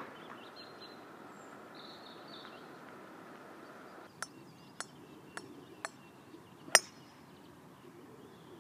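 A golf driver striking a ball off the tee: one loud, sharp crack about two-thirds of the way through. Before it come four lighter sharp clicks about half a second apart, over a low outdoor background.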